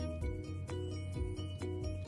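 Background music with a steady beat of about two hits a second over a low bass line and repeating melodic notes.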